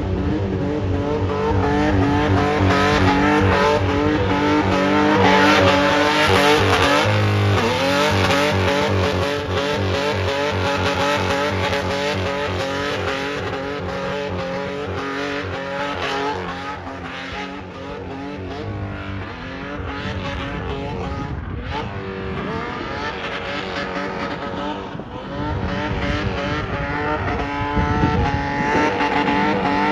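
Nissan 4x4 SUV drifting, its engine held at high revs while the tyres squeal and skid. The revs drop sharply and climb back twice, about seven seconds in and again near nineteen seconds.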